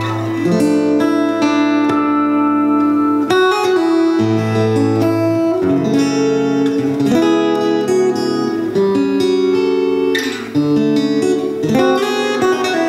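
Martin D-35 E dreadnought steel-string acoustic guitar played fingerstyle: a melody of plucked notes over a ringing low bass note.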